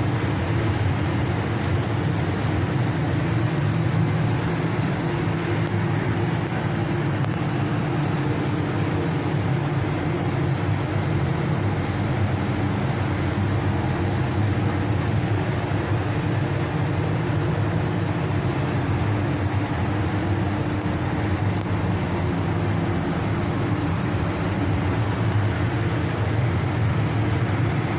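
Spray booth ventilation fans running: a steady, loud air-handling hum with a low drone and no changes.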